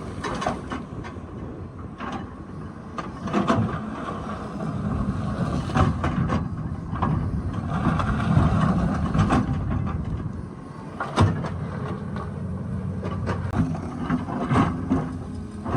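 Diesel excavator engine running under load, rising and falling with the work, with scattered metal clanks and knocks as the bucket works the rock.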